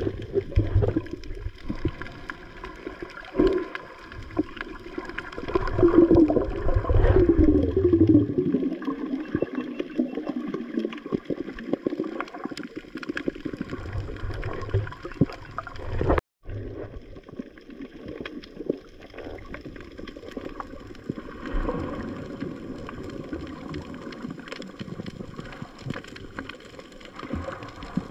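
Underwater sound picked up by an action camera: a muffled rush of water with dense crackling clicks throughout and a wavering tone for a couple of seconds about six seconds in. The sound cuts out for an instant about sixteen seconds in.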